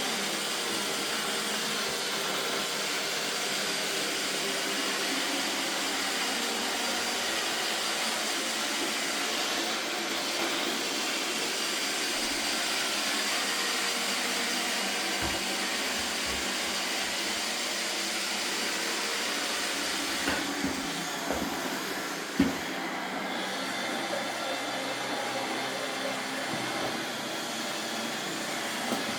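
iRobot Roomba 772e robot vacuum running steadily, its motor and brushes giving a constant whirring noise. A few brief knocks come about twenty seconds in, the loudest one sharp.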